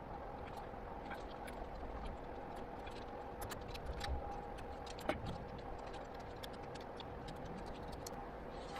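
Irregular small metallic clicks and ticks from tools and parts being handled while bike handlebars are fitted with Allen wrenches, over a steady faint hum.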